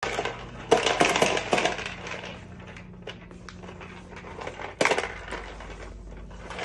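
Hard plastic clattering and clinking from a vacuum cleaner handled by a toddler, with a cluster of sharp knocks about a second in and another near five seconds, over a faint steady hum.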